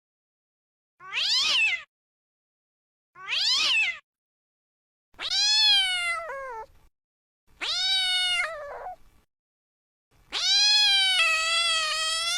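Cat meowing five times with silent gaps between calls. The first two are short, high mews; the next three are longer and drawn out, and the last is held for about three seconds, wavering slightly in pitch.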